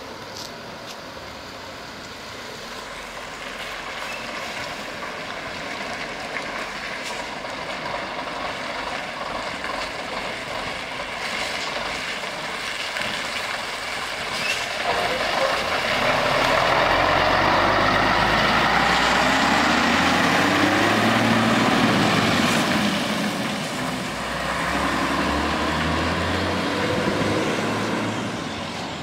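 Scania 110 Super truck's 11-litre straight-six diesel running as the truck manoeuvres and drives off, growing louder to its loudest a little past halfway, dipping briefly, rising again, then falling away near the end.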